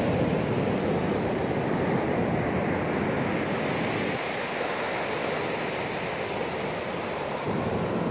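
Ocean surf rushing on a beach: a steady wash of noise that eases a little about halfway through and swells again near the end.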